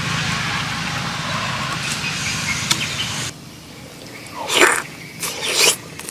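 Steady outdoor background noise that cuts off about three seconds in. Then close-up eating sounds of a man biting and slurping a shrimp dipped in chili sauce: two loud wet mouth sounds about a second apart.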